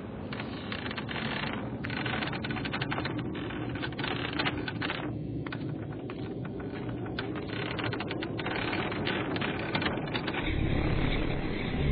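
A rapid, irregular clatter of clicks and taps, with a low rumble coming in near the end.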